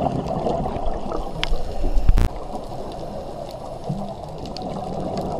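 Underwater sound picked up by a scuba diver's camera: a steady low wash of water with scattered faint clicks, a louder rushing burst about two seconds in, and a short low tone near four seconds in.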